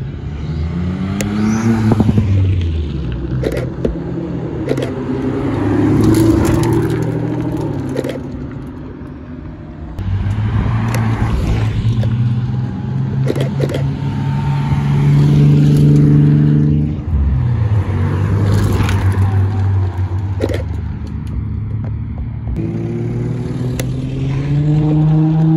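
Several performance cars drive out one after another, among them a Ford Fiesta ST, a Nissan Skyline and a Mercedes-AMG GT. Each engine revs and rises in pitch as the car accelerates past, with short lifts between cars. The engines are loudest near the start, about halfway through, and again near the end.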